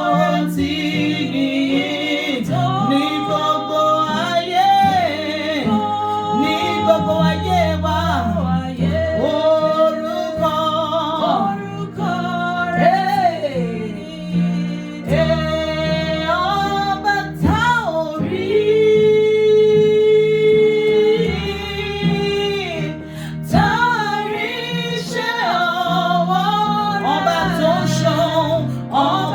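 Gospel worship song: a voice sings a melodic line over sustained instrumental backing, holding one long note about two-thirds of the way through.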